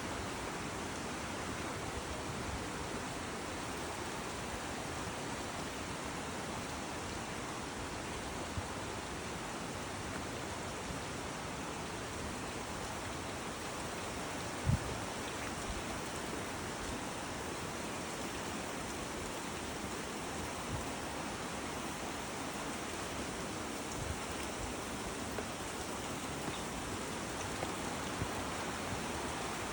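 Creek water flowing steadily, a constant rushing, with a few short low thumps, the loudest about halfway through.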